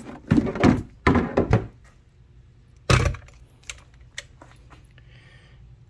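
A heavy 12-volt AGM battery is lifted out of a plastic cooler with a run of knocking and scraping, then set down on a glass bathroom scale with one solid thunk about three seconds in, followed by a few light clicks.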